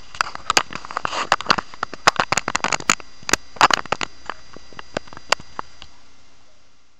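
Irregular crackling and clicking handling noise on a webcam's built-in microphone as the camera is held and moved about, thick at first and thinning out, then fading away near the end.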